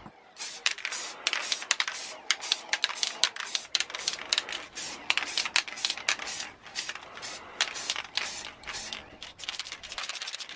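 Aerosol spray-paint can spraying gloss black in many quick short bursts, several a second, laying a light coat onto a plastic wing-mirror surround.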